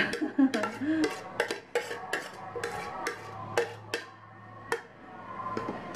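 Metal spoon clinking and scraping against a stainless steel mixing bowl as macaroni salad is stirred. The clinks come in a quick run that thins out after about three and a half seconds, leaving a few more near the end.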